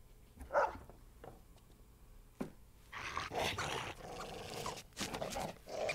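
A pit bull in distress on an animated short's soundtrack: two short cries, then a longer stretch of noisier dog sounds from about three seconds in.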